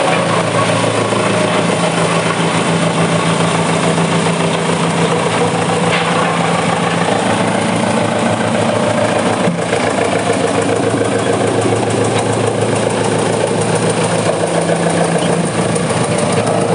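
YMPJ2113 wood chipper running steadily in a pre-delivery test run, a constant loud machine drone with a low hum.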